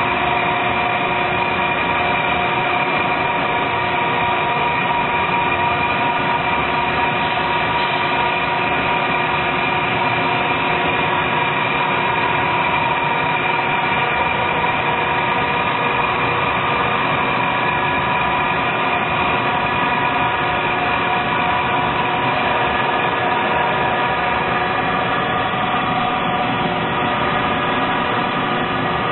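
Grinding machine running steadily while reworking a lathe bed, giving a constant whine of several steady tones over a dense grinding hiss.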